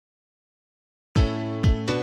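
Silence for about a second, then background music starts: held chords over a steady beat of about two a second.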